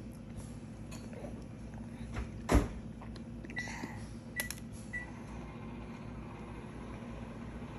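A single loud thump, then a few light clicks and three short high electronic beeps, over a steady low background hum.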